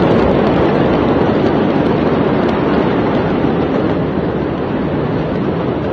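Steady loud rushing rumble of a large warehouse fire burning and billowing smoke, picked up on a phone microphone, with a few faint crackles in the first half.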